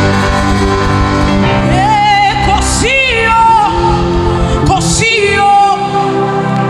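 Live gospel worship song: a singer's voice with sliding, held notes over a band accompaniment of sustained chords.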